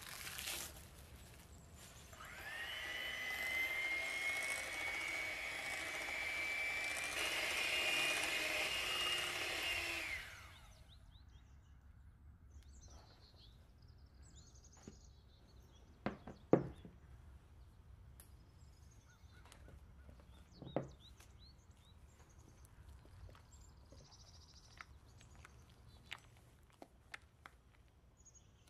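Electric hand mixer whipping cooled, set custard, starting about two seconds in and running steadily with a whine that steps up in pitch partway through, then stopping about ten seconds in. Afterwards, scattered light clicks and a couple of sharp knocks.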